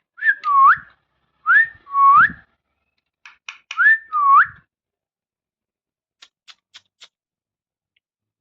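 Indian ringneck parrot giving three two-syllable whistled phrases, each a clear sliding whistle that dips and rises, in the pattern of its mimicked "papa". A few faint clicks follow near the end.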